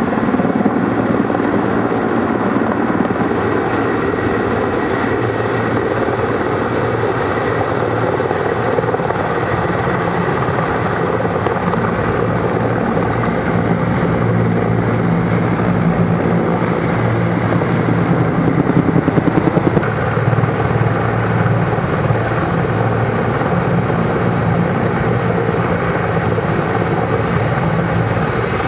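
Sikorsky S-64 Skycrane firefighting helicopter hovering low, a loud steady rotor roar with a thin high turbine whine over it, while it refills its tank from a pond through its hanging snorkel hose.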